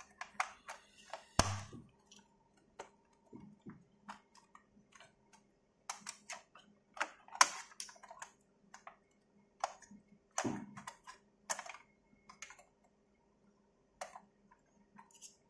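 Irregular clicks and taps of plastic and metal computer parts being handled by hand, with a few sharper knocks, about one and a half, seven and ten seconds in.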